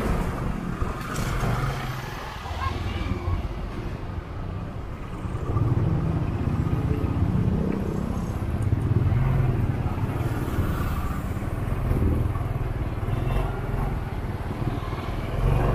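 Motorcycle engine running at low speed in slow street traffic: a steady low rumble that swells and eases as the throttle changes.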